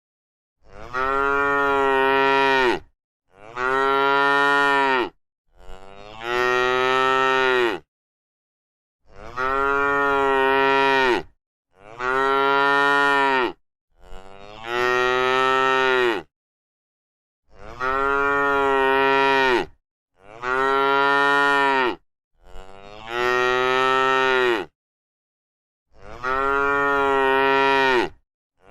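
A cow mooing: about ten long moos in a row, each about two seconds, holding one pitch and dropping at the end, with dead silence between them.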